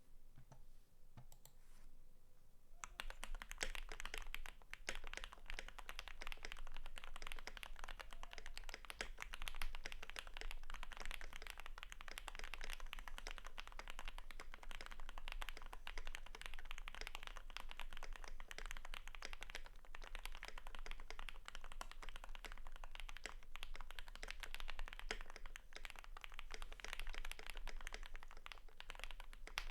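Keychron Q3 mechanical keyboard with a steel plate, lubed Gateron Pro Red linear switches and PBT keycaps, being typed on in a fast, continuous stream of key presses that starts about three seconds in.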